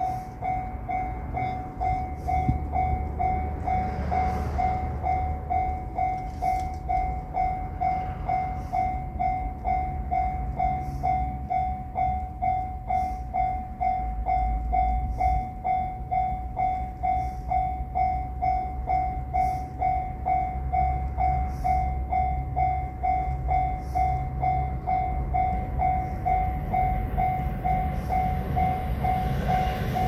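Japanese railroad crossing alarm ringing its repeated 'kan-kan' tone at a steady, even pace while the barriers are down, warning of an approaching train. The rumble of the oncoming express grows louder near the end.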